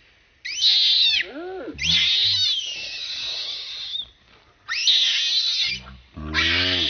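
Baby macaque crying loudly in four shrill, high-pitched screams that rise and fall in pitch, separated by short gaps. These are frightened distress cries.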